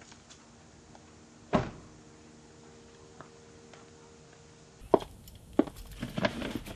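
A car door swung shut with a single loud slam about a second and a half in. Near the end come several sharp knocks and rustles.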